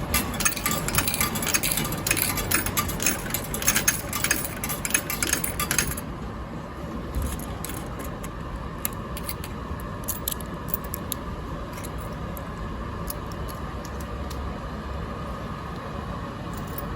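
Vending machine paying out coin change: a rapid metallic clatter of coins dropping into the return tray for about six seconds, then scattered single clinks of coins.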